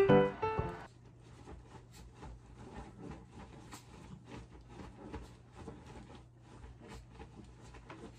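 A piano melody ends about a second in. Then faint room sound: a low steady hum with scattered light clicks and rustles of handling.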